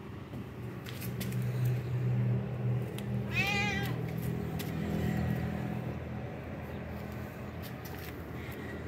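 A cat meows once, a short call about three and a half seconds in, over a low steady hum in the background.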